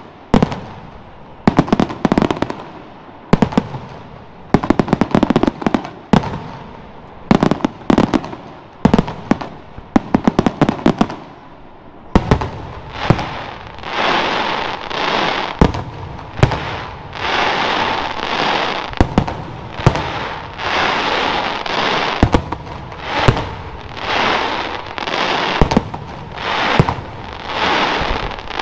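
Aerial firework shells bursting in a display: a quick series of sharp bangs, then about halfway through a run of rising-and-falling noisy swells about every second and a half, with sharp bangs still among them.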